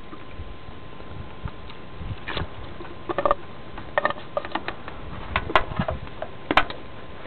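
Scattered light clicks and taps from handling at the HHO cell, a few irregular ones at a time, over a steady faint hiss.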